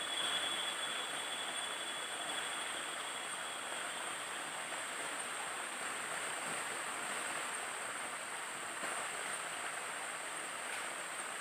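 Small forest-stream cascade splashing steadily over a rock ledge into a pool, with a steady high-pitched whine above the water.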